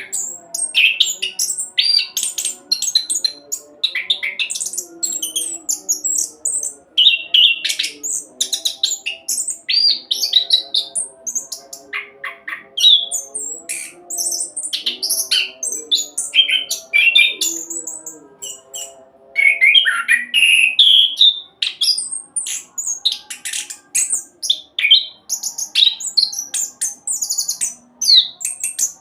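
Orange-headed thrush singing a fast, continuous rolling song of rapid, varied chirps and whistles with hardly a pause.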